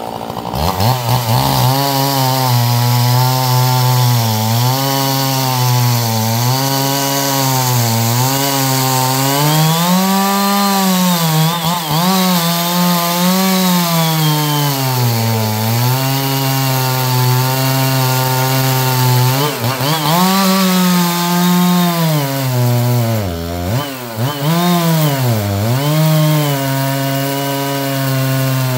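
Chainsaw cutting through black walnut hardwood. The engine revs up about half a second in, then runs continuously with its pitch sagging under load and climbing again over and over, with several deep, quick bog-downs a little past three quarters of the way through.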